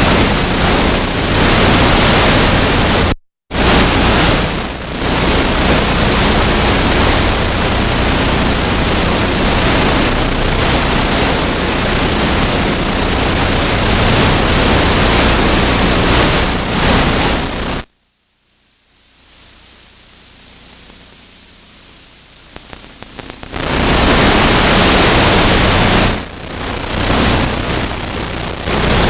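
Loud, steady static-like hiss covering the whole range from low to high. It cuts out completely for a moment about three seconds in, then drops much quieter for about five seconds past the middle before coming back.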